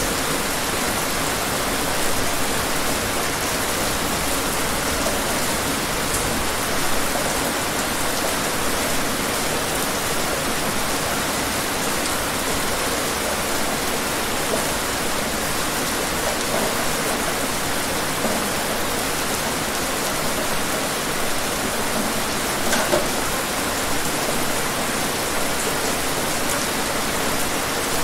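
Steady rain falling, an even dense hiss, with a few single drops standing out as sharp ticks.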